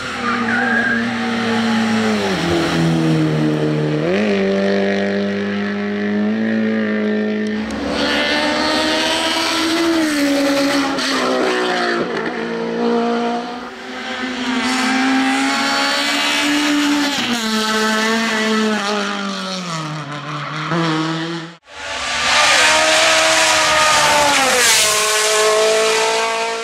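Racing car engines at high revs, sharp and loud, their pitch climbing and then dropping again and again as the drivers shift gears through the climb. The sound cuts out sharply for an instant a little past the twenty-second mark, then comes back at high revs.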